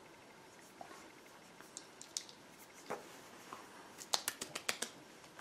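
Small clicks and taps of a skincare toner bottle and its cap being handled, with a quick run of about six sharp clicks about four seconds in.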